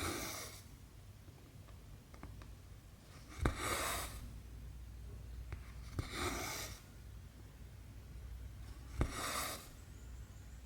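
Needle and cotton thread drawn through cross stitch fabric: a sharp click as the needle passes, then a short rasping swish of thread pulled through, four times about every three seconds.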